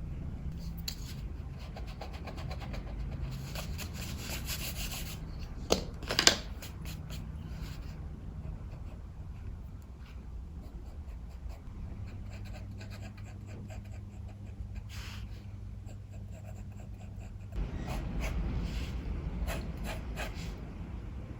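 Pencil scratching on paper in short strokes over a steady low rumble of strong wind, which swells in a gust near the end. Two sharp knocks about six seconds in.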